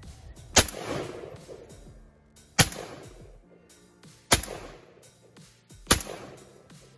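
ATI Bulldog 12-gauge semi-automatic bullpup shotgun fired four times, roughly one and a half to two seconds apart; each shot is a sharp blast whose echo trails off over about a second. Background music runs underneath.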